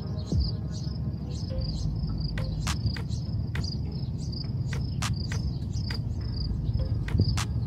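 A cricket chirping steadily in a high, even pulse about three times a second. Scattered sharp clicks and a low rumble run beneath it.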